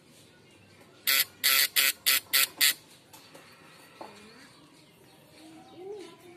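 Homemade fish-stunner rig, an ignition coil switched by a vibrating contact strip, buzzing harshly in six short bursts in quick succession about a second in.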